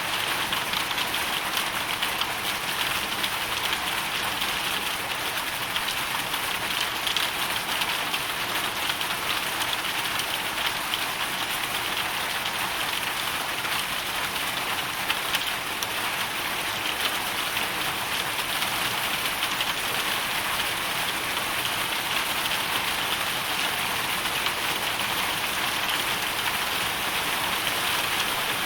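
Hail storm: a steady, dense patter of countless small hits, hail and rain striking surfaces.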